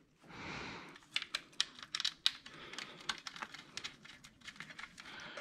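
A soft rustle, then a run of irregular light clicks and taps from hand tools and small parts being handled.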